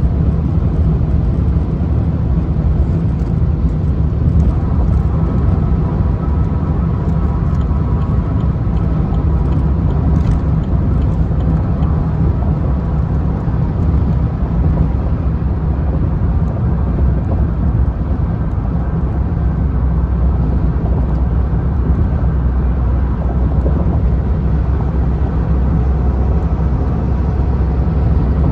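Car driving at highway speed: a steady, low road and engine rumble.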